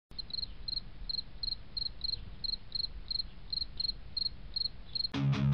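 A cricket chirping steadily at a high pitch, about three chirps a second, each a quick little trill, over a faint low hum. Music with strummed guitar and a beat starts just before the end.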